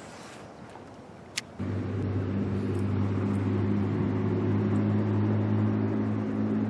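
A click, then a motor switches on a little over a second in and runs with a steady, even low hum.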